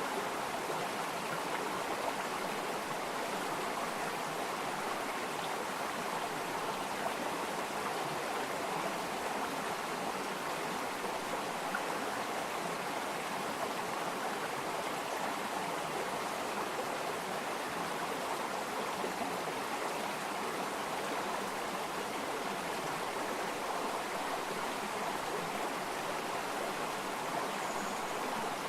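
Stream of running water flowing steadily, a continuous even rush.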